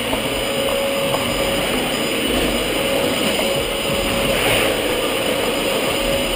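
Upright vacuum cleaner running steadily, a constant motor whine over a rushing of air, as it is pushed across a hardwood floor.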